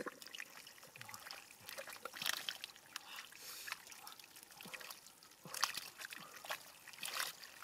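Wet mud squelching and muddy water trickling and sloshing as hands scoop mud into a perforated plastic basket, in irregular short splashes.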